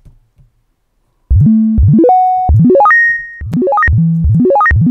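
Ableton Wavetable synth played through an arpeggiator, starting about a second in with a few held notes. It then plays fast upward arpeggios that jump in fifths from the bass up several octaves, repeating about twice a second. This is the chirpy 'coin collecting' video-game sound.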